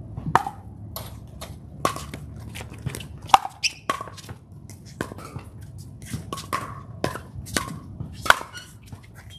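Pickleball paddles hitting a plastic pickleball back and forth in a doubles rally: a string of sharp pops, about one every half second to second.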